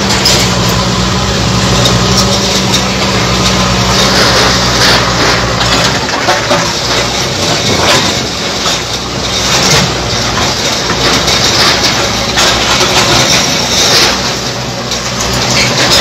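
Diesel engines of JCB backhoe loaders running while a backhoe arm tears down a building's walls, with repeated crashing and clattering of falling masonry rubble. The steady engine hum is strongest in the first six seconds, after which the crashes dominate.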